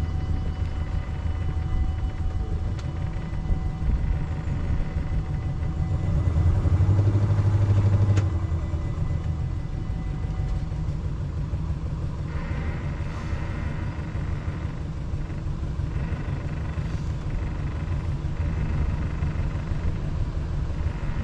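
Small sailboat's engine running steadily as it motors along a canal, a low rumble that swells louder for a moment about seven seconds in.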